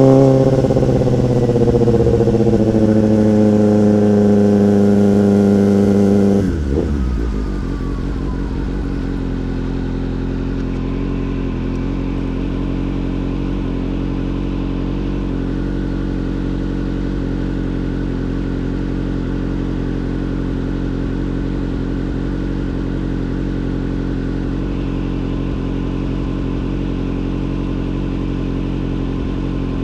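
Motorcycle engine running at steady revs. About six seconds in, the revs drop sharply and the engine settles into a steady idle.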